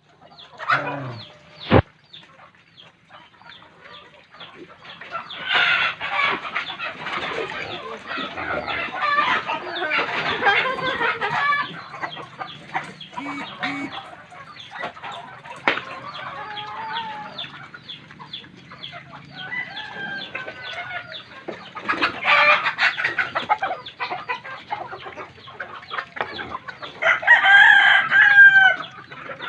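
Chickens clucking continuously, with a rooster crowing near the end.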